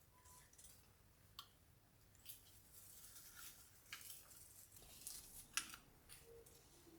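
A few faint, sharp clicks and rustles of objects being handled in a small room, the loudest a little past halfway.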